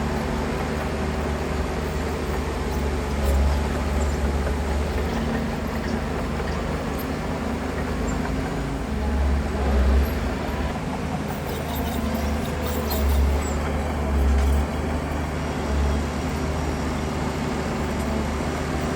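Heavy earthmoving machinery's diesel engine running steadily. Its rumble swells louder several times as it works under load.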